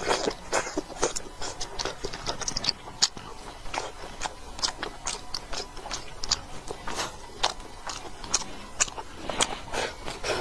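A person eating close to the microphone: a dense, irregular run of wet chewing and lip-smacking clicks, several a second.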